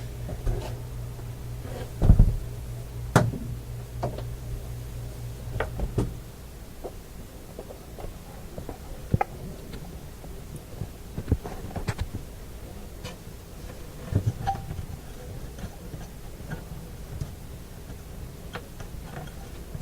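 Scattered clicks, taps and knocks of hands handling a tube radio's cabinet and its loose glass dial, loudest about two and three seconds in. A low steady hum runs underneath and stops about six seconds in.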